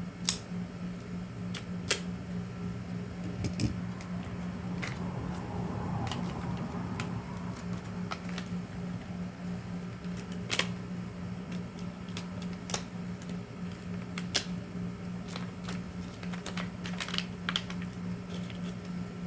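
Scattered sharp clicks and taps of packaging being handled and cut open with a knife, with a brief scraping stretch a few seconds in, over a steady low hum.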